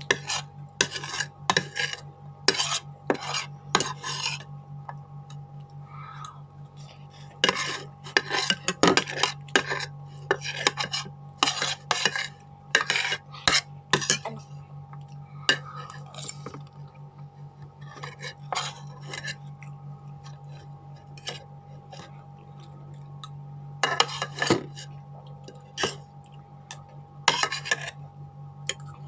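Metal fork and spoon scraping and clinking against a plate in irregular clusters of short strokes, gathering up the last leftover noodles. A steady low hum runs underneath.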